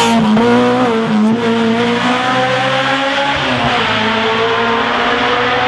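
Race-prepared Suzuki hatchback's engine held at high revs as the car powers away through a bend, a steady note with small dips in pitch.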